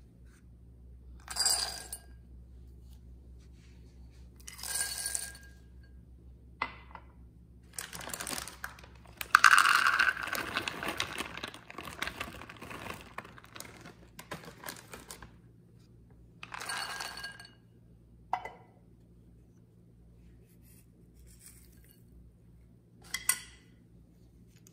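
Whole nuts (almonds, pistachios and hazelnuts) poured from measuring cups into a glass bowl, clattering and clinking against the glass in several separate pours, the longest lasting several seconds in the middle.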